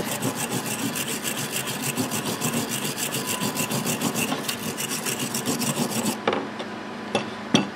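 Wire brush scrubbing a wet steel vise part in quick back-and-forth strokes, about six a second, cleaning it after electrolysis rust removal. The scrubbing stops about six seconds in, followed by a few light knocks.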